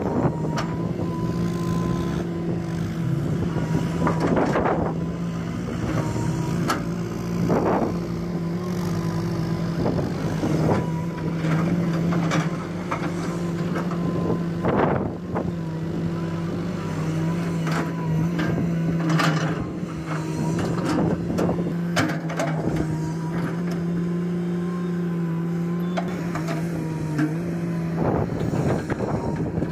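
Komatsu PC210 hydraulic excavator's diesel engine running steadily under load while the bucket digs, swings and dumps sand. Repeated short knocks and scrapes from the bucket and sand are scattered through it.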